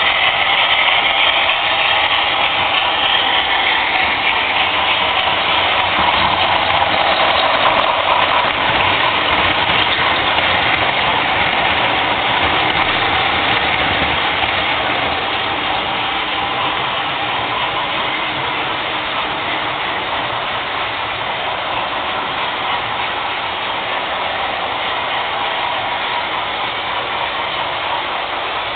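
Model electric trains running on the layout's sectional track: the steady running noise of their motors and wheels, a little louder in the first half.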